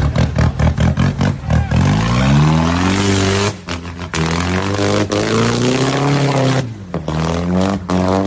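Troller 4x4's engine revving hard through a mud pit, its pitch climbing and dropping with several throttle pulses. It stutters choppily for the first couple of seconds, then comes a spell of splashing mud and water hiss.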